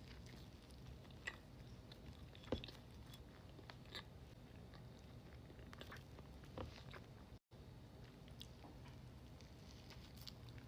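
A person chewing and biting food close to the microphone, with scattered short clicks and mouth noises over a low steady hum. The sound drops out completely for a moment about seven seconds in.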